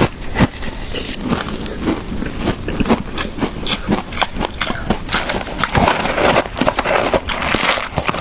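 Close-up crunching of shaved ice being bitten and chewed, a dense run of sharp cracks and crackles that grows thicker and louder about five seconds in.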